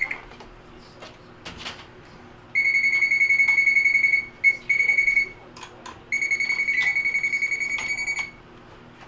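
A dishwasher control panel beeping in long steady high tones, three runs of about one to two seconds with a short blip between, and several sharp clicks as the door latch switch is pushed in and out. The beeping means the control is getting power again through the faulty, taped-together door latch switch.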